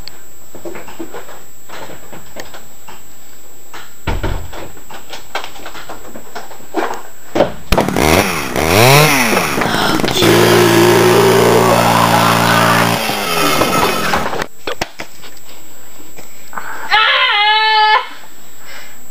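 Two-stroke chainsaw revving, its pitch swinging up and down, then held at high revs for a few seconds before it stops about two-thirds of the way in. Faint clicks and knocks come before it, and a short high wavering sound comes near the end.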